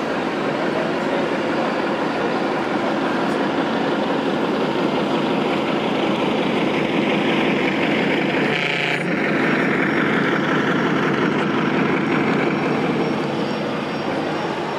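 Radio-controlled model trucks and construction machines running, a steady mechanical drone with a brief tonal note about nine seconds in.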